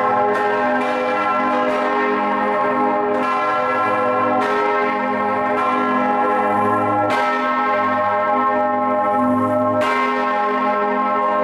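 Full peal of six bronze church bells (tuned A-flat, C, E-flat, F, G, B-flat) swinging and ringing together, heard up close inside the belfry. The strokes overlap at uneven intervals over a steady low hum.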